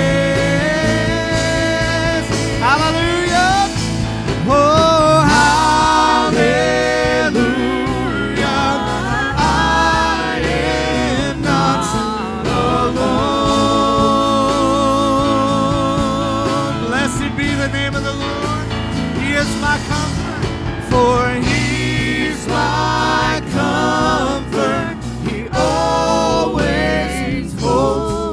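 Live church worship music: a singing voice with held, wavering notes and slides over a continuous band accompaniment, in a slow gospel worship song.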